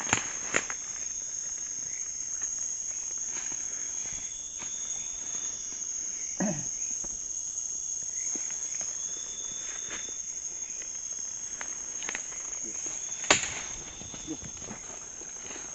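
A chorus of night insects keeps up a steady, high-pitched trill, with a few scattered clicks and snaps over it. The sharpest snap comes about 13 seconds in.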